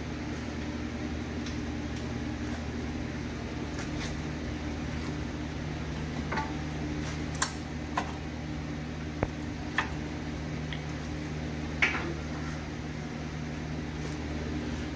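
Steady low mechanical hum of shop equipment, with scattered sharp metallic clinks from about six to twelve seconds in as brake caliper parts and tools are handled at a car's front wheel hub.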